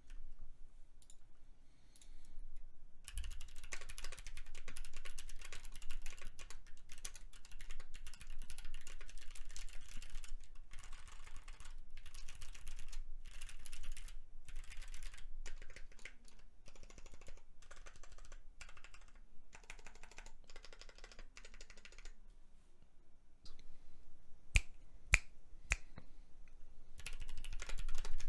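Mechanical keyboard fitted with Mint switches (teal polycarbonate housings, 68 g springs) being typed on: continuous fast keystrokes for most of the stretch after a quiet first few seconds, then a few single key presses, and fast typing again near the end.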